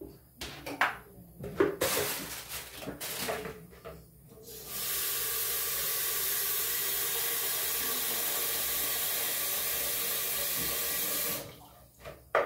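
A few knocks from handling, then a bathroom sink faucet turned on about five seconds in, running steadily to fill a plastic cauldron with water for about seven seconds before it is shut off.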